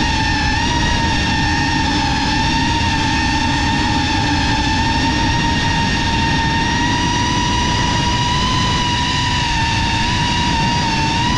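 The brushless motors and ducted propellers of a GEPRC Cinelog 35 cinewhoop FPV drone whine steadily in flight. The high tone rises and dips slightly with throttle, over a low rushing noise.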